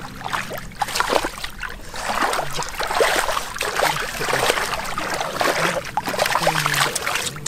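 Hands splashing and groping through shallow muddy water, a constant run of irregular splashes and sloshes.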